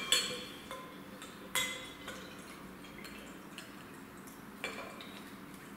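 Beer being poured from bottles into drinking glasses, with a soft trickle of liquid. A few sharp glass clinks come at the start, about a second and a half in and again near the end.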